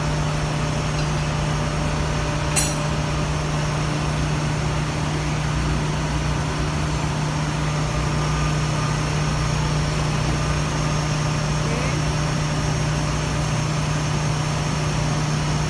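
Steady ship engine-room machinery noise with a strong low hum, from the fuel purifier and its feed pump running. One sharp metallic clank about two and a half seconds in.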